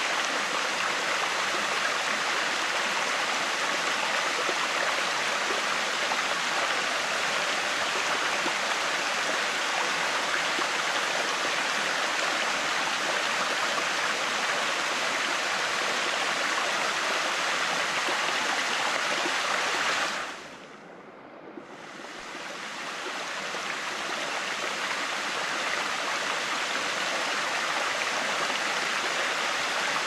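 Shallow, clear upstream river rushing and splashing over boulders in a small cascade into a pool: a steady babble of running water. About two-thirds of the way through it briefly drops away and goes dull, then swells back over a few seconds.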